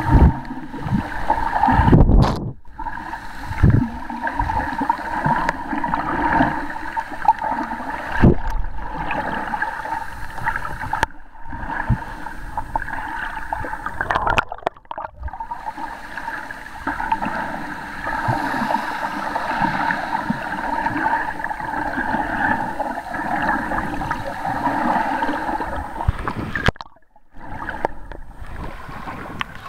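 Water gurgling and sloshing around a camera held underwater by a snorkeler. A few low thumps come in the first ten seconds, and the sound cuts out briefly several times.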